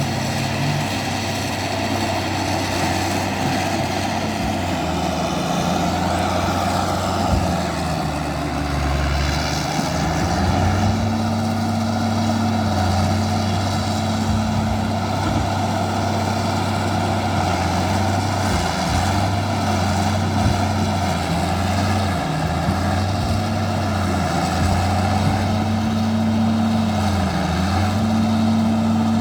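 Bulldozer's diesel engine running hard, its pitch repeatedly dropping and climbing back up as the load comes and goes while it pulls logs.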